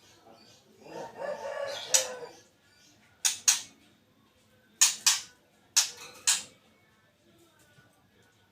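Bird calls from a white-rumped shama (murai batu) lure recording: a pitched crow-like call lasting a little over a second, starting about a second in, then pairs of short, sharp, very high calls repeated several times.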